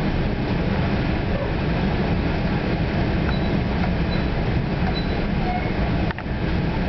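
Steady rumble and rush of a New Jersey Transit Comet VI multilevel coach running at speed, heard from inside the car, with one brief knock about six seconds in.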